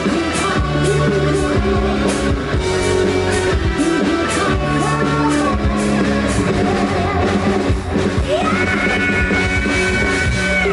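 A live band playing rock music, with a drum kit beating steadily under guitar and singing. A long held high note comes in during the last few seconds.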